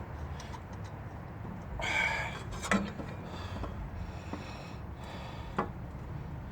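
A short breathy noise about two seconds in, like a sniff or exhale, then two light sharp clicks of metal parts being handled, one soon after and one near the end.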